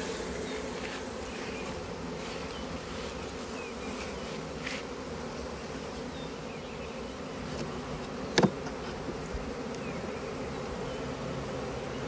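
Steady hum of a honey bee colony buzzing on the open frames of a five-frame nuc. A single sharp knock comes a little after eight seconds in.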